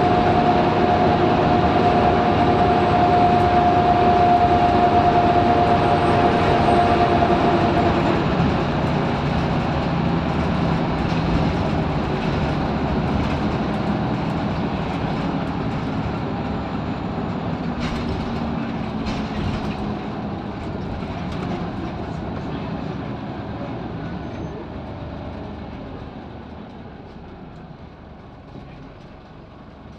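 Inside a moving Scania L94UB Wright Solar single-deck bus: engine, drivetrain and road rumble with a steady whine that stops about eight seconds in. The noise then fades gradually as the bus slows.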